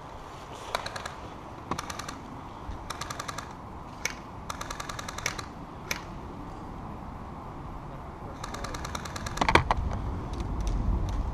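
Airsoft guns firing in short full-auto bursts of rapid clicks, about five bursts in all, with a single louder knock near the end.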